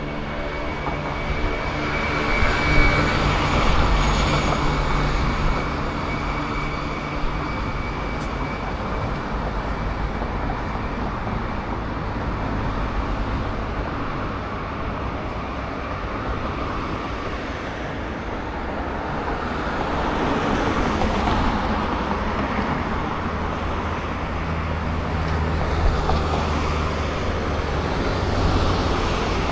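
Road traffic: cars passing one after another, engine hum and tyre noise, with louder passes a few seconds in and again around twenty seconds in.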